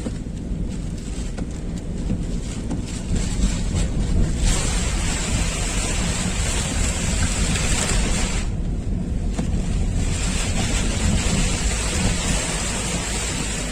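Heavy surf breaking on a beach in a strong onshore wind, the wind buffeting the microphone with a constant low rumble. The hissing wash of the waves drops back for the first few seconds and again briefly past the middle.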